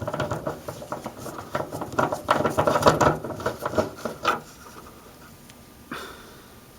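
Rapid clicking and scraping of a hand tool working T30 Torx bolts out of a car's trunk lid cover, stopping about four seconds in, then one sharp click near the end.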